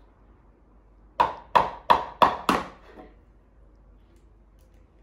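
Five quick sharp taps, about three a second, each with a short ring, then a fainter one: an egg being knocked against the rim of a bowl to crack its shell.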